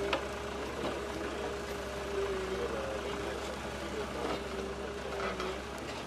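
Doosan 225LC tracked excavator's diesel engine running under work, with a steady, slightly wavering whine over a low hum. Several sharp knocks as the grapple handles the logs.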